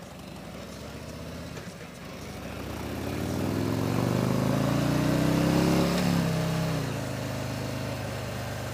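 Harley-Davidson Street Glide Special's V-twin engine accelerating under way: its note climbs and grows louder for several seconds, drops sharply about six seconds in, then runs steady at a lower pitch.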